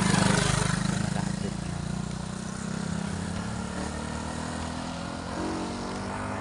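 A motor vehicle passing on the road, its engine loudest at the start and fading away over the next few seconds.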